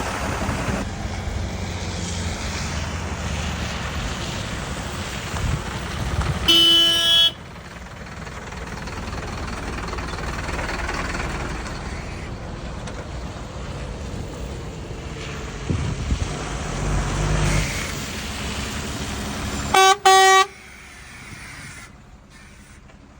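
ATV engine running under steady rumble and wind, with a vehicle horn honked in two short blasts, about six seconds in and again near the end.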